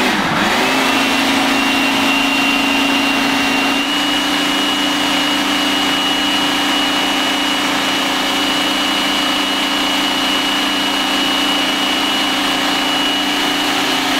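Food processor motor running steadily while it processes a thick vegetable-pulp dough: a loud, even hum and whine that comes up to speed in the first half second and steps up slightly in pitch about four seconds in.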